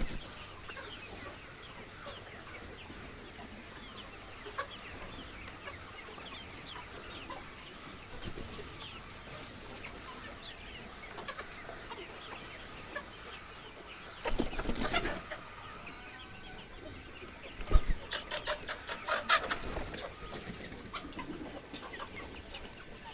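A flock of laying hens clucking continuously. Just after the middle there is a louder rush of noise lasting about a second, and a few seconds later a run of sharp knocks.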